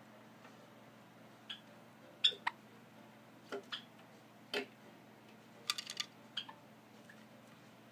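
A salt-and-pepper Java sparrow at its nest box giving scattered short, sharp clicks and chips, with a quick run of several clicks about three-quarters of the way through, typical of an angry bird threatening in defence of its nest.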